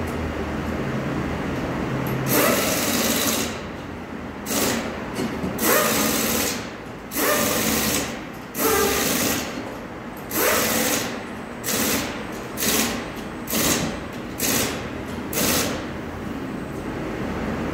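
Tyre changing machine running in a dozen or so short bursts, roughly one a second, as a tyre is mounted onto a wheel rim. Between the bursts a steady workshop hum carries on.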